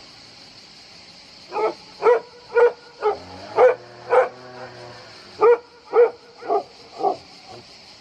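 A dog barking in two runs of short barks, about two a second: six, then a pause of about a second, then five more. A steady high hiss lies underneath.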